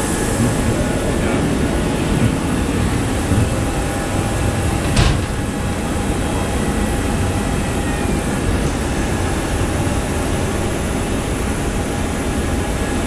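Steady, loud machinery drone of a parked Boeing 737-700 and the ramp around it, heard from the open forward door, with a faint steady whine running through it. A short knock about five seconds in.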